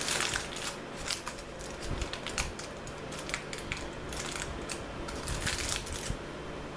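Aluminium foil crinkling and crackling in many small irregular crackles as hands pull it away from the sides of a baked brownie.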